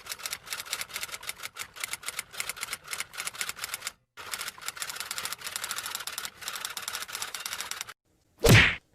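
Manual typewriter keys clacking rapidly in two runs of typing, broken by a short pause about four seconds in. Near the end there is a single loud, short swish.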